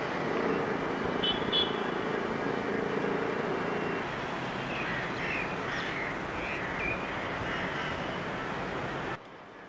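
Steady city street traffic noise with a low hum underneath, two short high beeps about a second in, and bird chirps in the middle. Near the end it cuts abruptly to a quieter hush.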